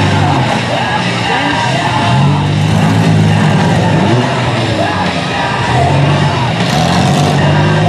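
Loud rock music playing, with demolition-derby minivan engines revving up and down underneath.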